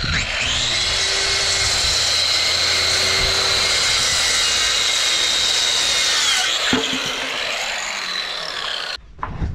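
DeWalt circular saw cutting through a wooden board, its motor giving a steady high whine. About six seconds in the trigger is released and the blade winds down, falling in pitch, with a sharp knock just after.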